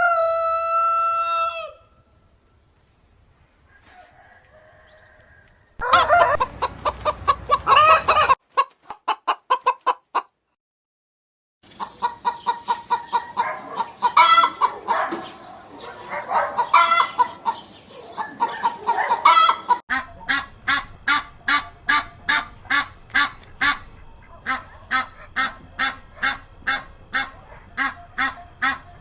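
Rooster crowing, the crow ending about two seconds in, followed by chickens clucking in several separate stretches. From about twenty seconds in, the clucks come in a regular run of about two a second.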